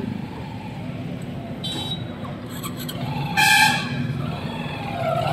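Road traffic with vehicle engines running in a steady low rumble, and a vehicle horn honking once for about half a second about three and a half seconds in. A fainter, higher toot comes about two seconds in.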